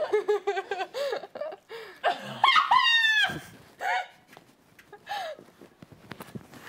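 People laughing: a quick run of repeated laughs, then a high-pitched, wavering squeal of laughter about three seconds in, fading to a few faint clicks and rustles.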